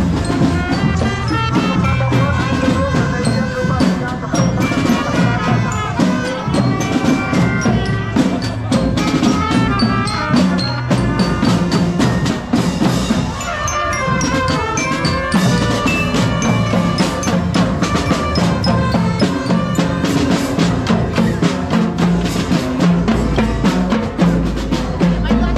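Music with a steady drum beat under a fast melody of struck notes on xylophone-like mallet instruments.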